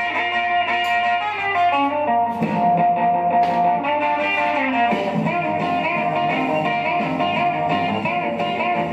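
Background music with a guitar playing a melody over a steady accompaniment.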